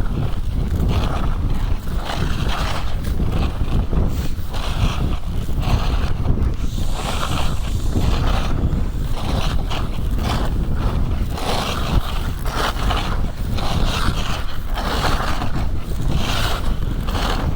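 Skiboards scraping and hissing over snow in short repeated turns, a burst of edge scrape about once or twice a second, over a steady low rumble of wind on the microphone at speed.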